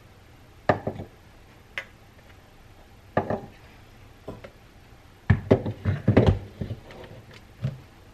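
Metal clicks and knocks of an espresso machine's portafilter and tamper being handled: tamping the grounds, setting the tamper down, and locking the portafilter into the group head. Short separate knocks at first, then a quick cluster of knocks a little after the middle.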